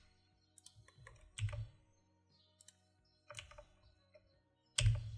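A few separate computer keyboard keystrokes at irregular intervals, the loudest near the end, over a faint steady background hum.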